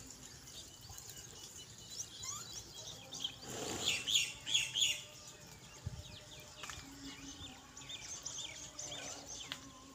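Small birds chirping and calling in the trees, many short overlapping notes, with a louder run of about four repeated calls a few seconds in.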